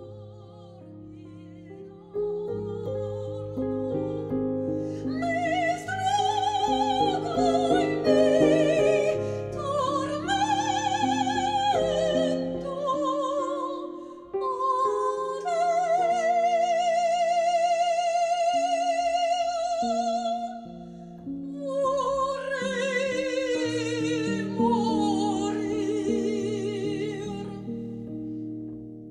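A classically trained soprano singing high operatic phrases with a wide vibrato over a soft instrumental accompaniment. The voice comes in about two seconds in, breaks off twice between phrases, and holds one long high note midway.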